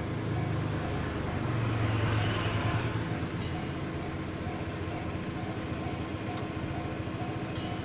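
Japanese level-crossing warning bell ringing its rapid electronic ding, about two a second. A vehicle passes, loudest about two seconds in.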